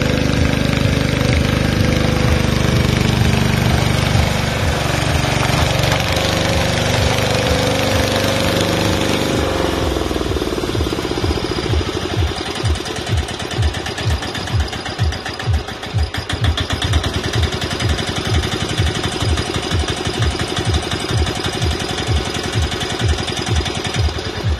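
Lister diesel engine of a Power Pony garden tractor running, then, about ten seconds in, dropping to a slow idle of separate, evenly spaced beats, a little over two a second.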